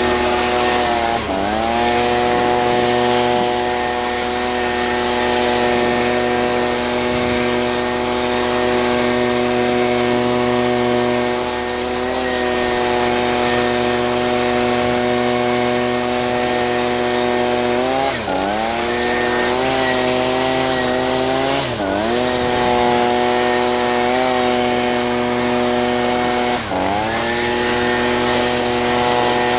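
Gas-powered leaf blower running at high throttle. Its engine pitch dips briefly and climbs back four times, a little over a second in and three times in the second half, as the throttle is eased off and opened again.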